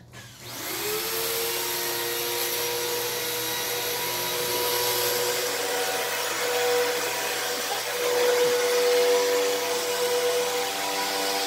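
Upright vacuum cleaner switched on, its motor spinning up in rising pitch over about a second, then running steadily with a whine over the rush of air.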